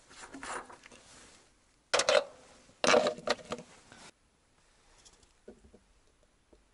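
Plastic oil canister and a cut-bottle funnel being handled: sharp plastic knocks and scrapes about two and three seconds in, then a few faint clicks.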